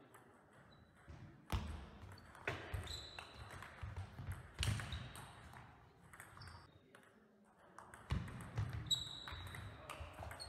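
Table tennis ball clicking off the rackets and the table during a rally, a handful of sharp hits spaced irregularly, echoing in a large sports hall, with a few brief shoe squeaks on the floor.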